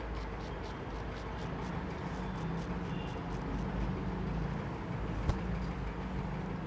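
Razor scraping through beard stubble in a run of short strokes, over a steady low hum; one sharp click about five seconds in.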